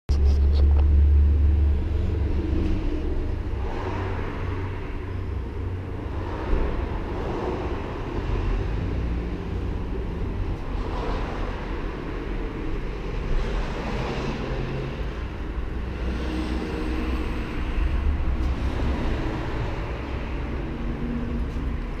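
1964 Buick Riviera's 425 cubic-inch Nailhead V8 running steadily, a little louder for the first two seconds.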